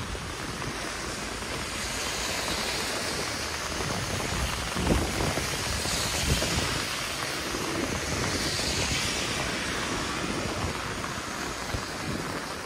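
Rain and wind outdoors on a wet street: a steady hiss that swells and fades about three times, with low buffets of wind on the microphone.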